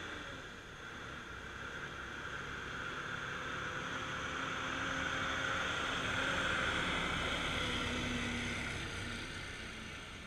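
A car driving past on the road, its tyre and engine noise swelling to a peak about six seconds in, then fading as it drives away.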